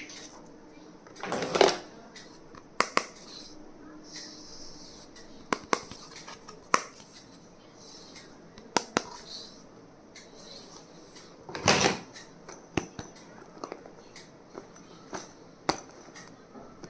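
Stationery and its packaging being handled on a tabletop: scattered light clicks and taps, with two louder, longer scraping or rustling sounds, one about a second and a half in and one about twelve seconds in.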